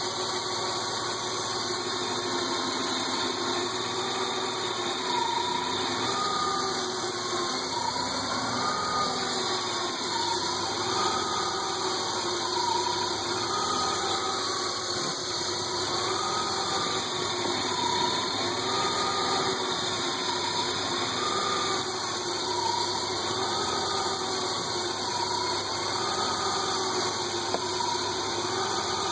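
BMW E36 325i's 2.5-litre straight-six idling steadily, with a whine that rises and falls in pitch about every two and a half seconds.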